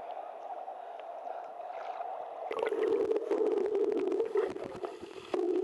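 Sea water heard through a camera at and under the surface: a muffled, hollow rush. About two and a half seconds in, it drops lower and fills with crackling bubbles and splashes as the camera goes under.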